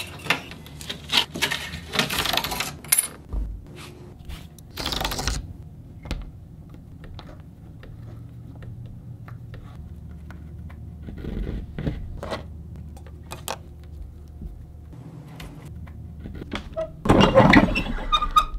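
Hands working a braided fishing-line bowstring at a wooden workbench: scattered light clicks, taps and small metallic clinks, with a louder burst of scraping and clattering near the end.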